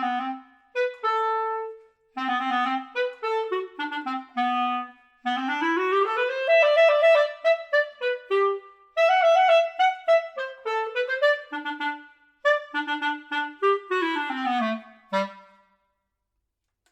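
Solo clarinet playing a lively study in A major: short detached and accented notes, quick dotted runs up and down, ending about a second before the close.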